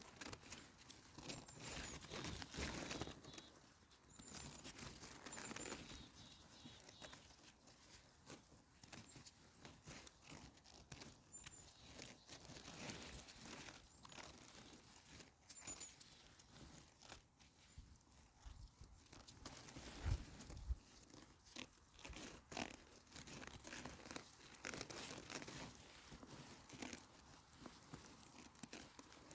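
Irregular rustling and crunching of forest-floor litter, as of someone moving through it, with a few faint high bird chirps. A single low thump comes about twenty seconds in.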